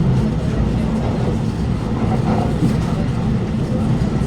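Steady low rumble inside the carriage of an Alstom Movia R151 metro train running at speed between stations.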